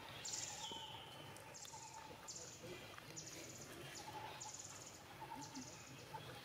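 Outdoor forest ambience: a high-pitched, rapidly pulsed insect chirp repeats seven times at roughly one-second intervals, over faint bird calls.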